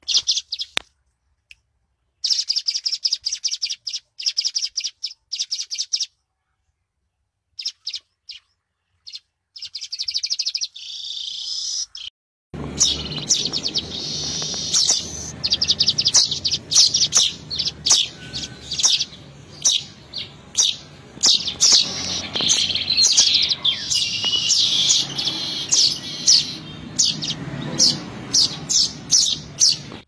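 Weaver (manyar) song: rapid runs of high, chattering chirps that stop and start in the first twelve seconds. From about twelve seconds in the chirping goes on almost without a break over a steady low background rumble.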